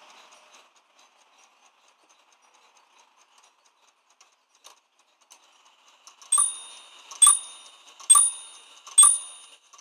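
Tupman carriage clock ticking faintly, then about six seconds in it begins striking the hour on its bells: four ringing strokes about a second apart, each left to ring on.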